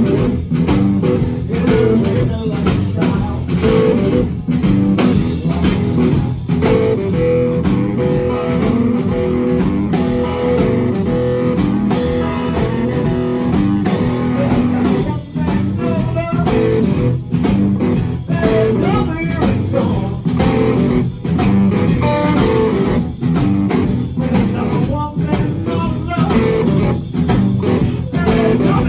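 Live blues band playing: two amplified electric guitars over a drum kit, with no bass guitar.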